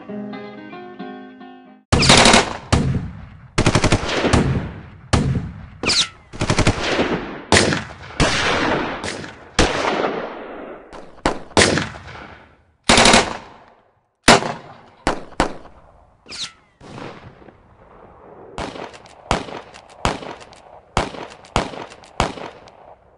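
Blues guitar music stops about two seconds in, and sustained gunfire from several guns follows. It comes in rapid bursts and single shots, each ringing with a short echoing tail, and the shots grow sparser toward the end.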